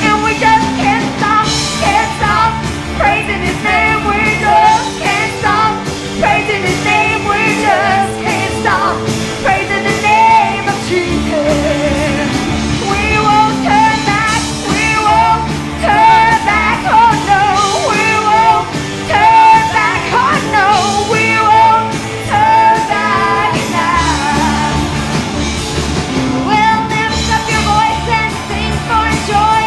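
Live up-tempo gospel praise music: voices singing a melody over a band with bass and a steady drum beat.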